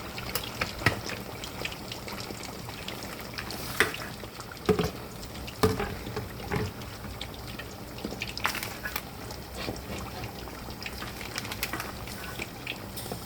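Chicken drumsticks frying in oil and butter in a pan, a steady sizzle with scattered crackles and pops. A few louder knocks, about six, come through along the way.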